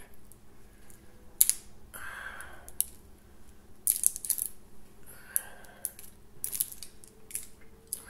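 A small sauce bottle's seal and cap being worked open by hand: a run of sharp clicks and ticks, some in quick clusters, with two short soft rustles between them.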